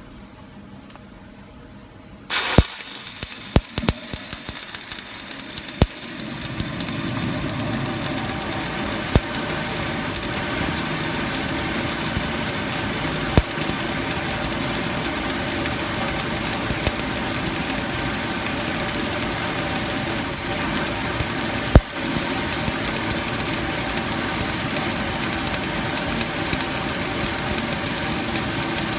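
Stick (shielded metal arc) welding arc: about two seconds in the electrode is struck, with a few sharp cracks as the arc catches, then a steady crackling sizzle as the root pass of a field weld is run.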